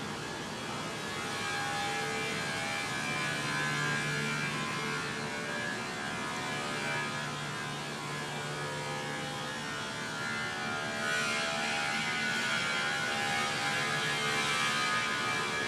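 Steady electric motor hum from a running machine, with a faint whine of several steady tones. About eleven seconds in, a higher hiss grows louder over it.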